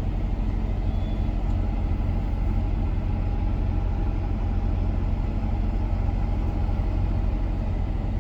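Steady low drone of a truck's engine and running noise, heard from inside the cab.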